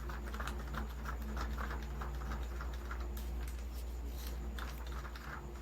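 Glue, water and colouring being stirred in a clear cup for slime, giving many light, irregular clicks and taps of the stirrer against the cup, over a steady low hum.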